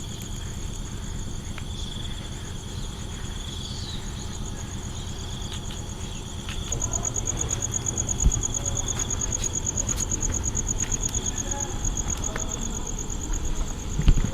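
Insects calling in a steady, high-pitched drone. A louder, rapidly pulsing insect call joins about seven seconds in, over a low rumble.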